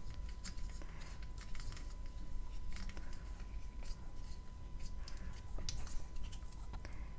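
A plastic syringe being filled with wet chalk paste: scattered soft clicks and rustles of the plunger and barrel being handled, over a faint steady high whine.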